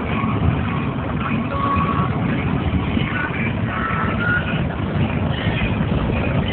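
Steady road noise inside a moving car at road speed: tyre and engine rumble.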